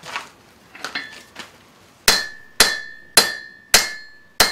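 About a 3-pound hammer striking hot iron on an anvil, drawing the bar out to a point. After a few lighter knocks, five hard blows start about two seconds in, about two a second, each ringing on between strikes.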